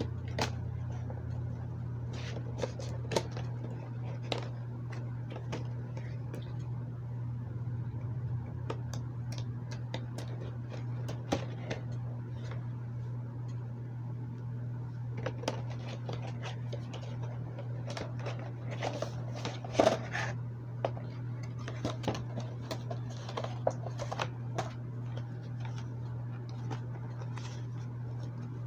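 An action figure's cardboard-and-plastic packaging being opened by hand: scattered clicks, scrapes and crinkles, thickest in the middle stretch, over a steady low hum.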